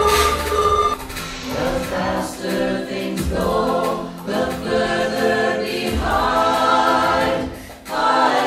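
A group of mixed voices singing held chords in close harmony, each chord sustained for a second or two before moving to the next, after two short high notes at the start.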